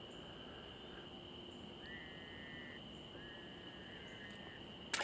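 Faint summer-night chorus of insects such as crickets, a steady high-pitched drone, with two short trilled calls about two and three seconds in. A brief noise comes right at the end.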